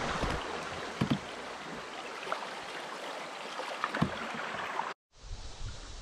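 Water rushing and splashing around a kayak moving through a rippling stretch of river, with two dull knocks, about a second in and again near four seconds. It cuts off abruptly near the end into a quieter low rumble.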